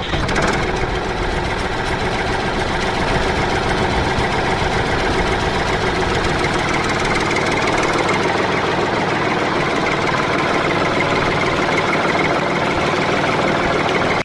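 Steady running of a vehicle engine, a sound effect laid over a plastic toy truck that has no motor. It starts abruptly, holds at an even level, and cuts off abruptly at the end.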